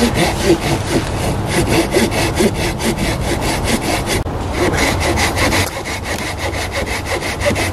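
Hand saw cutting through a dry, dead log in quick, rhythmic push-pull strokes, about four a second, with a brief pause about four seconds in.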